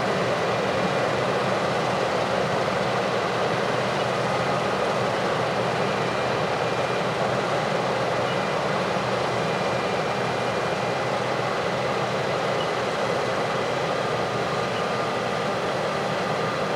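Heavy farm machinery running steadily, an even continuous drone with no change in pace.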